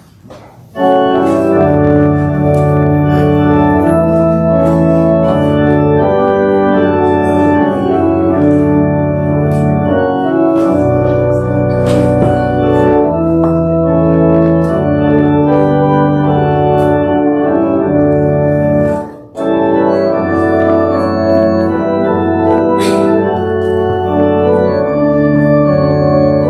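Church organ playing held chords that change every second or two. It starts about a second in, stops briefly about two-thirds of the way through, then resumes.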